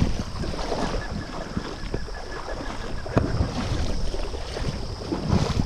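Water splashing and sloshing as a traíra (wolf fish) held in a lip gripper thrashes at the surface of shallow, weedy water, with a sharp click about three seconds in. Wind rumbles on the microphone.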